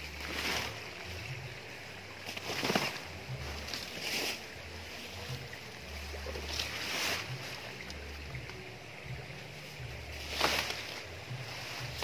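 Leaves and stems of dense undergrowth swishing and rustling as someone pushes through on foot, about five separate brushes every couple of seconds over a low, uneven rumble.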